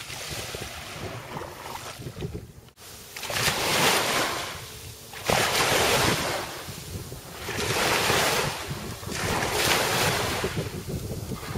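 Ocean surf rising and falling in about four swells, roughly two seconds apart, starting a few seconds in, with wind rumbling on the microphone.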